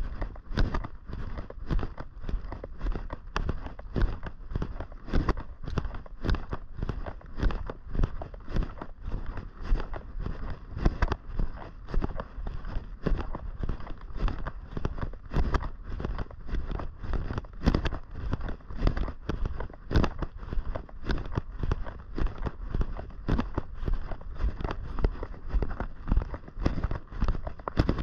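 Footsteps of a person walking at an even pace, about two steps a second.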